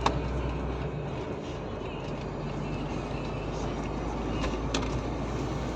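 Steady engine and road drone heard from inside the cab of a moving cargo vehicle, with a few faint clicks.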